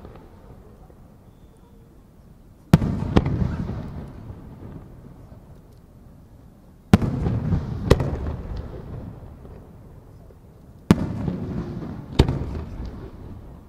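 Japanese aerial firework shells bursting: three sharp bangs about four seconds apart. Each is followed within a second or so by a second, smaller bang and a rolling rumble that dies away over a couple of seconds.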